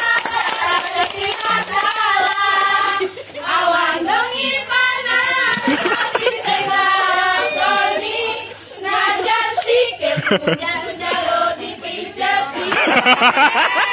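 A group of girls singing a chant together in unison, in short phrases, with sharp hand claps and slaps keeping the beat.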